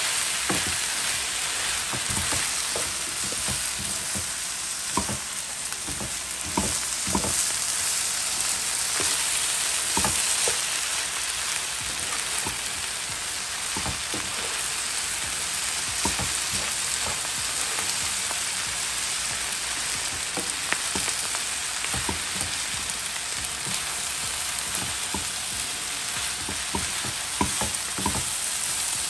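Shrimp and pineapple fried rice sizzling in a skillet, with a steady hiss, while a wooden spatula stirs and tosses it. Frequent irregular scrapes and taps come from the spatula against the pan.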